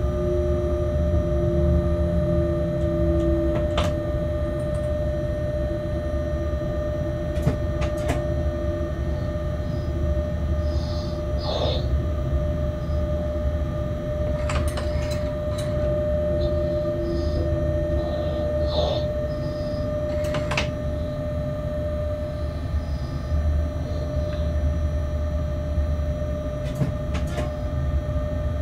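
Locomotive cab interior while running light at low speed: a steady low rumble with a constant whine, broken by sharp clicks and knocks from the wheels passing over rail joints and points, and a few brief high squeaks.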